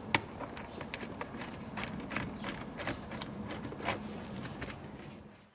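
Irregular small clicks and knocks of a screwdriver and hands working out a Phillips screw in a car's plastic dash trim.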